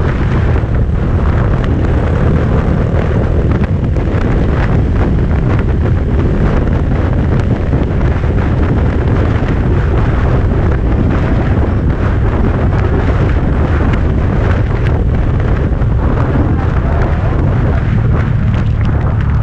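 Heavy wind buffeting on the microphone of a small motorcycle at steady riding speed, with the 2018 Honda Grom's single-cylinder engine running through its Yoshimura RS-2 exhaust underneath. The sound is loud and steady.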